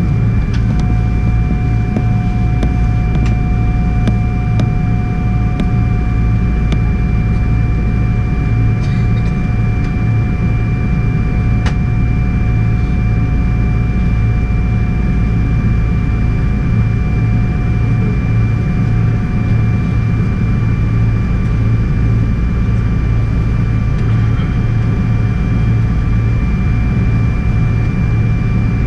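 Cabin noise inside a Boeing 777-300 holding still on the ground: the Rolls-Royce Trent 892 engines running at idle, a steady low rumble with a constant high whine over it.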